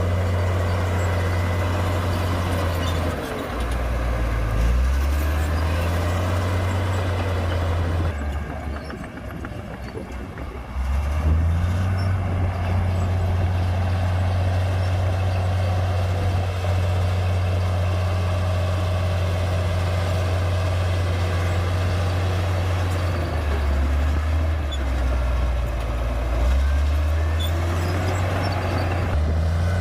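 Komatsu D58P bulldozer's diesel engine running hard while pushing dirt. Its low note drops lower twice, and it eases off briefly about a third of the way in before picking back up.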